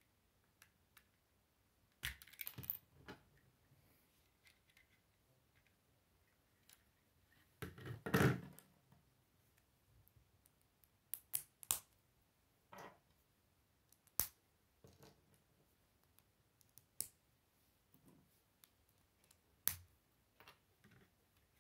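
Plastic Lego bricks and plates clicking as they are handled and pulled apart or pressed together by hand: scattered sharp clicks, a short cluster about two seconds in, and a longer clatter around eight seconds in, the loudest.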